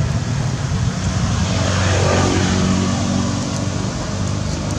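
A motor vehicle's engine rumbling steadily as it passes close by, swelling to its loudest about two seconds in and then fading.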